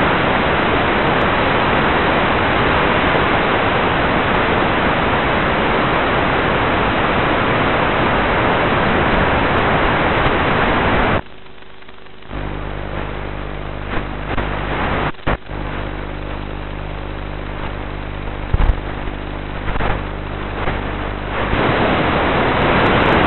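Static hiss from the audio channel of an analog FPV video receiver, the sign of a weak or lost signal. About 11 seconds in it drops out and gives way to a quieter steady electrical hum with a few clicks, while the link is clean, and the hiss returns near the end.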